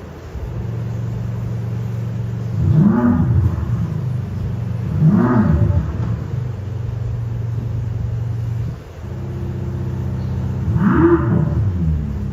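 Synthetic sports-car engine sound from an AlphaX electronic sound generator on an electric Tesla Model 3: a steady low idle with three short revs that rise and fall in pitch. It drops out for a moment about nine seconds in and then picks up again.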